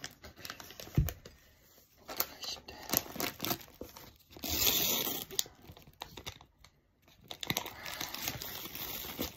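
A paper food wrapper being torn and crumpled open in irregular rustling bursts, the longest about halfway through, with one sharp knock about a second in.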